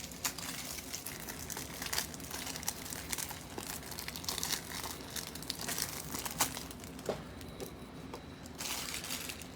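Plastic packaging crinkling and rustling as it is handled, with many irregular short crackles.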